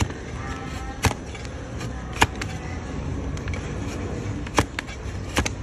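Donkey hoof horn being pared with a push-type hoof-paring blade on a wooden block. There are four sharp knocks at uneven intervals as slices of horn come away, over a steady low rumble.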